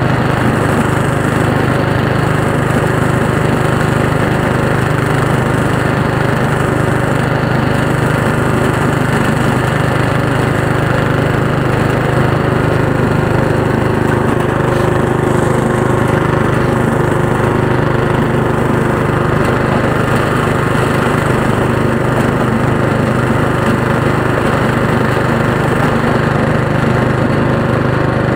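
Lawn tractor's engine running steadily under way, pushing a front-mounted snow plow blade.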